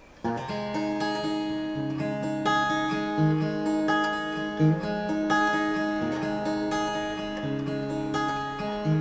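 Capoed black Gibson acoustic guitar playing the solo instrumental intro of a slow song, starting about a quarter second in. Chords are picked and strummed, with notes left ringing.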